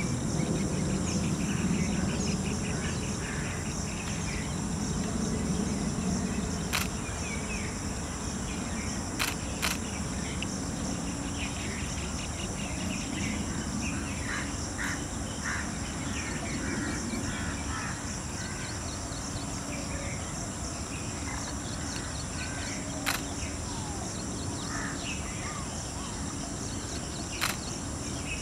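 Outdoor nature ambience: a steady high insect drone with small birds chirping here and there. About five sharp clicks stand out, and a low rumble sits under the first several seconds.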